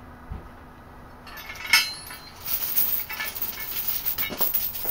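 Steel chain rattling and clinking as it is handled at an engine hoist, with one sharper metal clank early on and a steady run of jangling through the second half.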